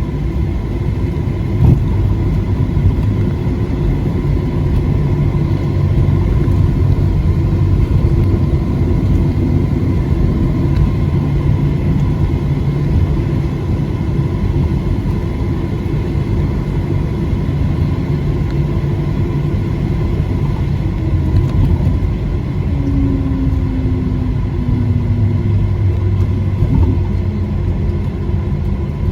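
Cabin noise of a Boeing 737-700 taxiing to the gate after landing: a steady low rumble from its CFM56 engines at idle, with a single thump about two seconds in.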